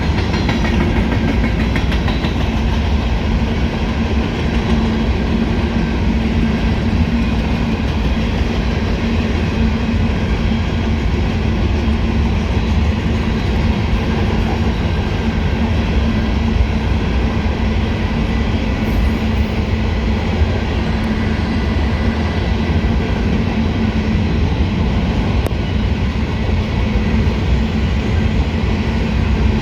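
A train's railcars rolling steadily past on the track, a loud continuous rumble of wheels on rail with clickety-clack over the rail joints.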